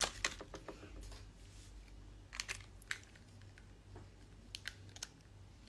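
Packaging being handled: scattered soft crinkles and clicks, a cluster of them at the start and a few more later, over a faint steady low hum.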